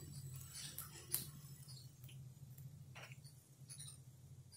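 Quiet room tone: a faint steady low hum with a few soft, scattered ticks.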